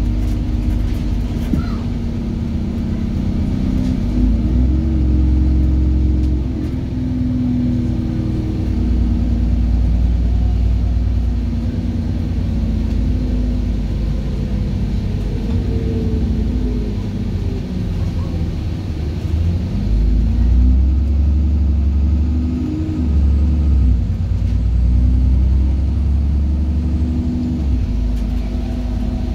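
Interior sound of an ADL Trident 2 / Alexander Dennis Enviro 400 double-decker bus under way: the diesel engine's low rumble rising and falling several times as the bus accelerates and eases off, with road noise throughout.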